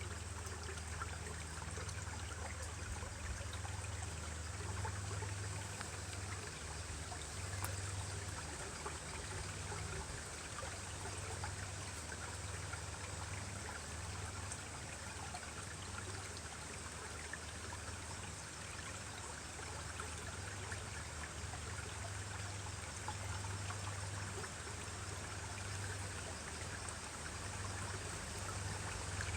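Mountain stream trickling and splashing over rocks, a steady rushing of water with a low rumble underneath.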